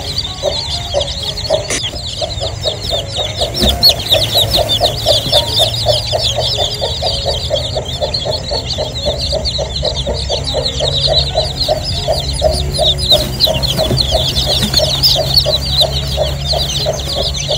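A brood of newly hatched chicks peeping continuously as a dense chorus of short high calls, with a hen clucking in a fast, steady rhythm underneath, over a low steady rumble.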